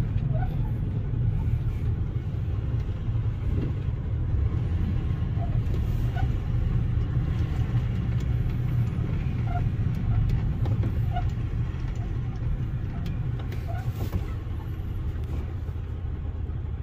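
Cab-interior drive noise of a 1997 Ford F-250 with the 7.5-litre V8 while driving: a steady low rumble from underneath. The driver takes it for a worn front hub bearing or a front differential pinion bearing, unsure which.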